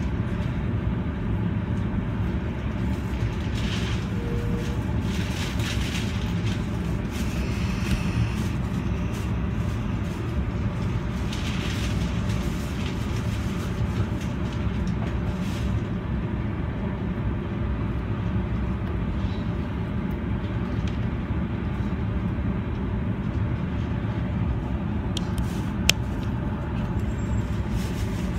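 Senboku Rapid Railway 7020 series electric train standing at a station platform: a steady low hum from the stopped train and the station around it, with a few brief hisses in the first half and one sharp click near the end.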